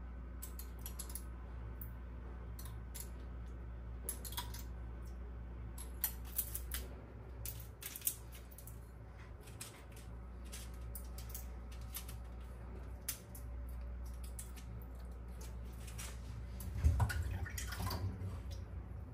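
Scattered light clicks and taps, like small objects being handled, over a steady low hum, with a louder clatter near the end.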